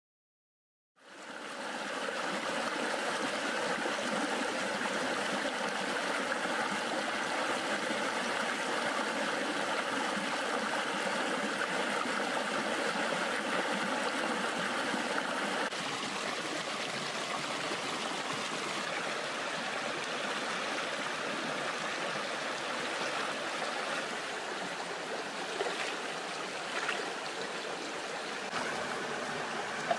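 Shallow rocky stream rushing over stones: a steady wash of running water that fades in about a second in and eases a little about halfway through, with a few faint knocks near the end.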